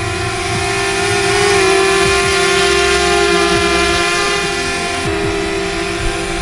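DJI quadcopter drone's propellers whining steadily just after take-off, the pitch rising slightly about a second and a half in and dropping a little about five seconds in.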